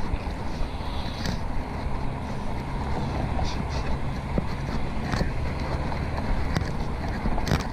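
Wind buffeting a bike-mounted action camera's microphone over the low rumble of road and passing traffic as a fixed-gear bike rolls along, with a few brief clicks near the end.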